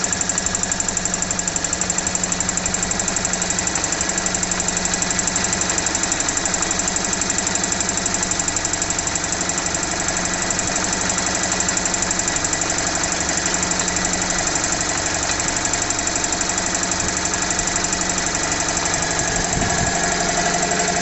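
Vintage Motivair air compressor, a twin-cylinder Frigidaire refrigeration compressor driven by a quarter-horsepower single-phase electric motor, running steadily with a fast pulsing chug as it slowly pumps its tank up to pressure.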